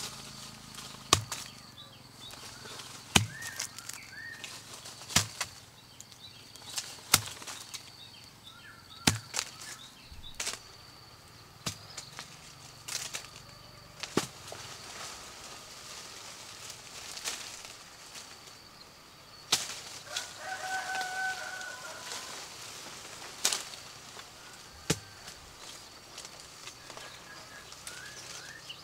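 Sapodilla fruit being snapped off a tree by hand: sharp snaps about every two seconds at first, then more irregular, with leaves and branches rustling between them.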